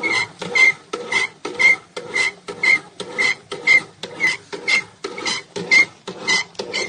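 Homemade washing machine, a cooking pot worked by a motor-and-pulley-driven wooden agitator, running with a rhythmic scraping and rubbing, about two strokes a second, each with a short squeak.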